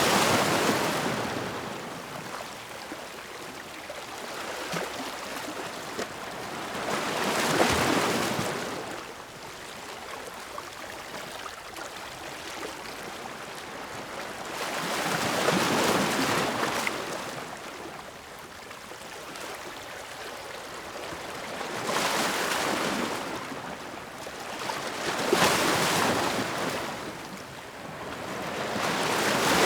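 Ocean waves breaking and washing in, the surf swelling and fading about six times, every four to eight seconds.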